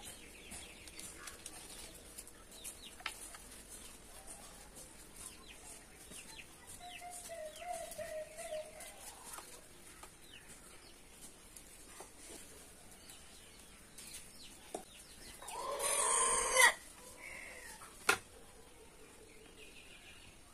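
Chickens calling: a wavering call about a third of the way in, and a louder call lasting about a second about three-quarters of the way in, with a sharp click soon after. Soft rustles and ticks of hands working soil into a pot run underneath.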